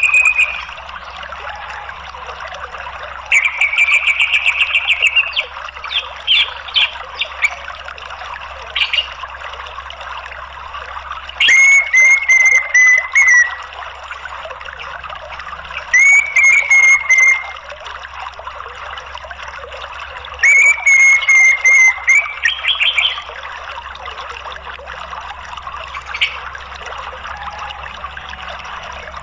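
Orange-headed thrush calls over steady running water: a buzzy trill, a few short notes, then three bursts of rapid, stuttering chatter.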